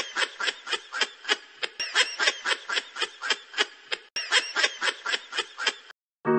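A person laughing in a long run of even ha-ha-ha pulses, about four a second, that cuts off suddenly just before the end.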